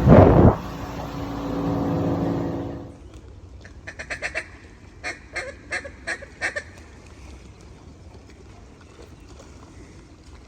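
A boat motor running with a loud knock at the start, then shutting off about three seconds in. After that, ducks quack in a string of about eight short quacks between about four and seven seconds in.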